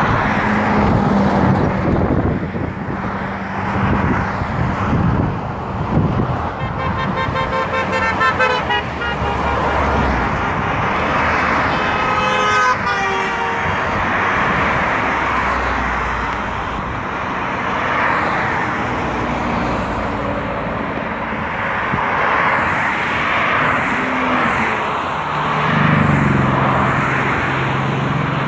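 A convoy of cars driving past at speed on a highway, engines and tyres making a steady rush of traffic noise. Horns sound in a long blast from about seven seconds in and again around twelve seconds, the second dropping in pitch as the car passes. A lower engine drone builds near the end as another car approaches.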